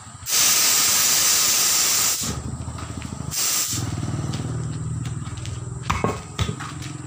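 Compressed air hissing loudly from a truck tyre changer's pneumatic valve for about two seconds, then a shorter burst a second later. A low machine hum follows, with a couple of metal clanks near the end.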